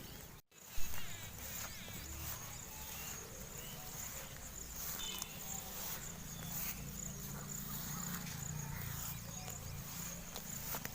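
Outdoor field ambience dominated by a steady high insect drone, with scattered small clicks and rustles. The sound cuts out briefly about half a second in.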